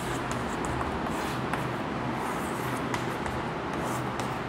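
Chalk drawing on a blackboard: a few light taps and scratches over a steady hiss with a low hum.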